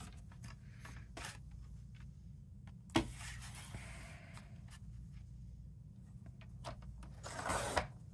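Cardstock being set up and cut on a slide-blade paper trimmer: light paper handling and small clicks, a sharp click about three seconds in as the clear hinged arm drops onto the paper, and near the end the blade carriage sliding along the rail and slicing through the cardstock. A low steady hum runs underneath.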